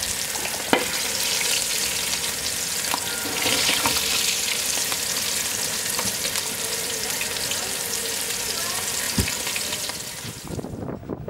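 Batter-coated squirrel pieces deep-frying in hot oil in a fryer basket: a steady sizzle with a few sharp pops. The sizzle fades out just before the end.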